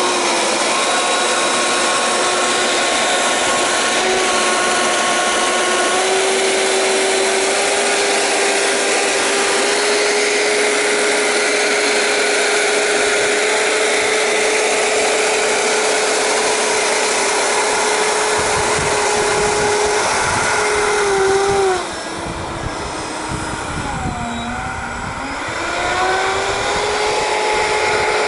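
Four 70 mm eleven-blade electric ducted fans on a scratch-built RC Convair 880 airliner model running at high power with a loud, steady whine made of several tones. About three-quarters of the way through, the whine drops in level and pitch as the throttle comes back, then spools up again.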